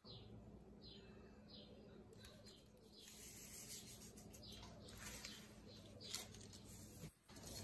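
Near silence: faint room tone with a steady low hum and a few faint high chirps.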